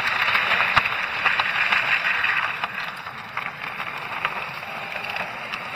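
Electric drift trike rolling over asphalt: a steady hiss of wheel and road noise with scattered rattling clicks from the frame. It eases off somewhat about halfway through.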